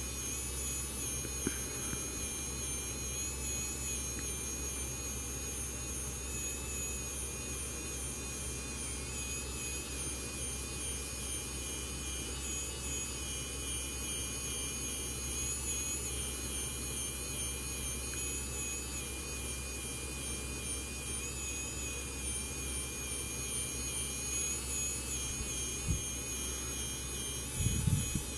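Handheld 3D printing pen running, its small internal motor giving a steady whir with a thin, slightly wavering high whine. A couple of soft knocks near the end.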